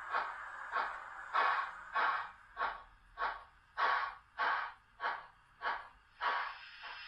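Model steam locomotive's sound unit playing steady exhaust chuffs, nearly two a second, with a steady hiss joining in about six seconds in.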